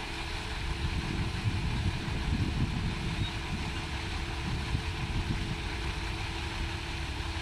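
Engine of an old crawler crane running steadily with a low rumble.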